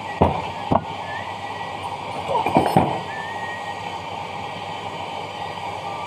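Sharp metal knocks from steel gearbox parts of a dough mixer being handled and set down on a workbench: two knocks in the first second, then a quick cluster of clanks a couple of seconds in, over steady background noise.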